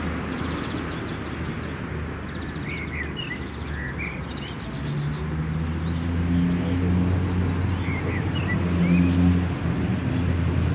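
Birds chirping in short calls over the steady low drone of an engine, which gets louder about halfway through.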